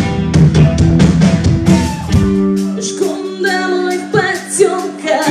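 Live rock band: a woman singing into a microphone over electric guitar, bass guitar and drum kit. About two seconds in, the drum beats stop, leaving held chords under her voice.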